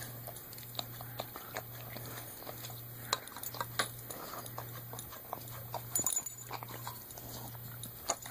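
Golden retriever licking and eating food out of metal cans: irregular wet clicks and taps of tongue and muzzle against the cans. A low hum pulses about once a second underneath.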